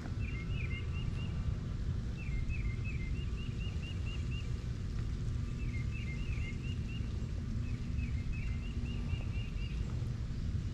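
A songbird singing a short stepped, trilling phrase, four times with pauses between, over a steady low rumble.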